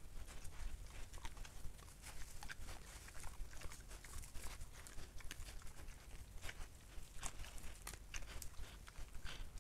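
Wild boar moving over dry leaf litter, with irregular crackling and rustling steps and a low steady rumble underneath.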